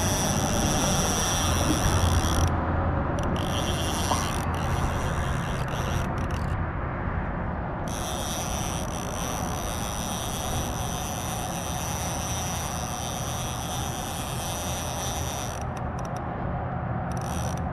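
Fishing reel clicker ratcheting steadily as line pays out, stopping briefly about three times, over a constant low rumble.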